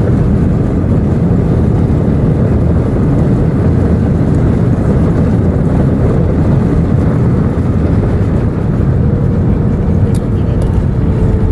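Steady loud rumble inside an Airbus A319 cabin as the airliner rolls on the ground after landing, with the noise of the engines and the wheels on the runway or taxiway. A faint steady hum joins about nine seconds in.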